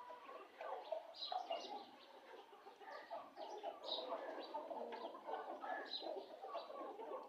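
Birds calling continuously: many short, soft low calls overlapping, with higher chirps scattered through.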